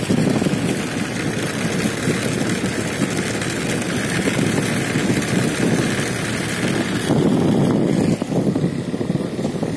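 Wind buffeting the microphone of a phone held out on a moving two-wheeler, a steady rough rumble with the bike's engine mixed in.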